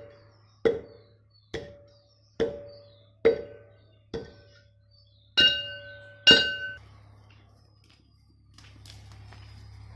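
A pestle pounding in a mortar with sharp, ringing metallic strikes about once a second, seven in all. The last two are the loudest and ring longest. Herbs are being crushed for an Ayurvedic syrup.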